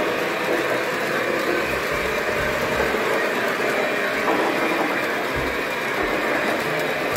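O-gauge model trains running on the layout: a steady rolling rumble of metal wheels on the track.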